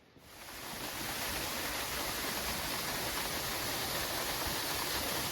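Waterfall rushing: a steady, even roar of falling water that swells in over about the first second and then holds.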